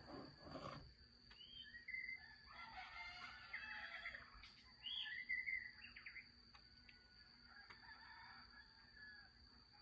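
Faint rooster crowing with other bird calls, over a steady high cricket tone.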